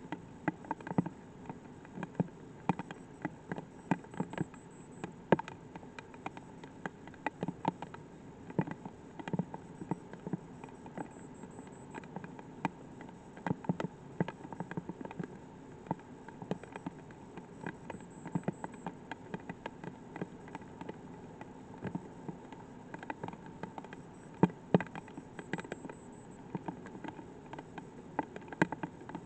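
Light rain, individual drops ticking sharply and irregularly, several a second, over a faint steady hiss.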